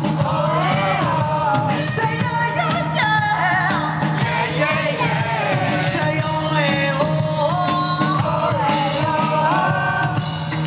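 Live rock band playing, with a male lead vocalist singing into a microphone over electric bass guitar.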